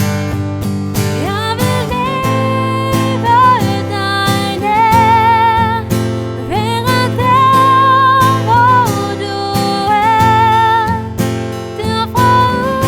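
A worship song: strummed acoustic guitar chords under a high melody of held notes with vibrato.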